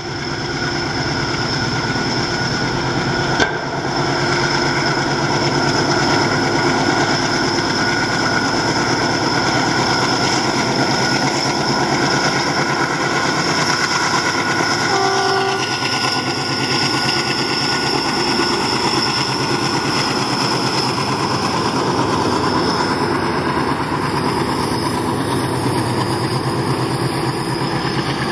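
Twin ALCO WDG-3A diesel-electric locomotives working hard on full notch up a gradient, their 16-cylinder ALCO 251 engines giving a loud, steady drone. About halfway through there is one short horn toot as the locomotives pass, then the freight wagons rolling by.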